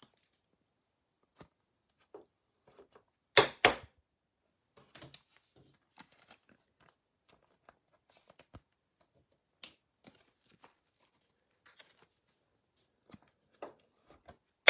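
Trading cards being handled and shuffled by hand: scattered soft clicks and rustles of card stock and packaging, with two sharp, louder handling noises close together about three and a half seconds in.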